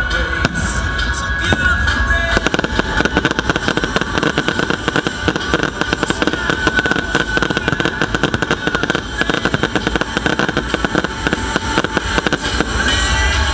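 Fireworks display: a dense barrage of shells bursting, heard as rapid crackling and banging from about two seconds in, easing near the end.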